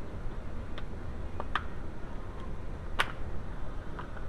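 A few short, sharp clicks from the Mk5 Jetta door lock actuator and latch parts being unhooked and handled, the loudest about three seconds in.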